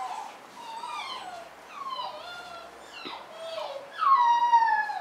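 A young puppy whining: several short whimpers that slide up and down in pitch, then a longer, louder whine about four seconds in that falls slowly.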